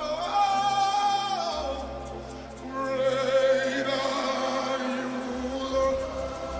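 Worship music: a voice sings two long, held phrases with vibrato over soft sustained chords.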